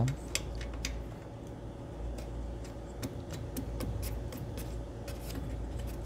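Light, irregular clicks, about two or three a second, of the garage door safety sensor's mounting hardware being tightened down, with a faint steady hum underneath.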